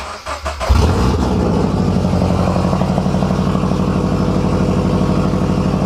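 Scion FR-S's 2.0-litre flat-four boxer engine cranked on the starter, catching a little under a second in and settling into a loud, steady idle. It is running on open unequal-length Borla headers with the front pipe removed, so the exhaust comes straight out of the headers.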